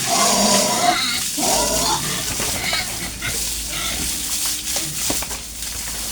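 Farm pigs squealing and grunting, loudest in the first second and a half, then quieter animal noise.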